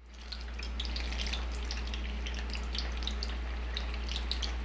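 Frozen, par-fried potato chips deep-frying in hot oil in a pan: a steady sizzle thick with fine crackling pops, fading in at the start, over a low steady hum.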